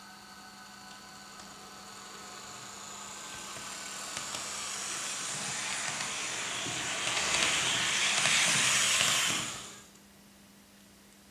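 Roco H0 model of an SBB Re 460 electric locomotive with a Zimo sound decoder, running along the track. A whirring hiss with a few faint steady tones grows steadily louder as the model approaches, then stops abruptly near the end.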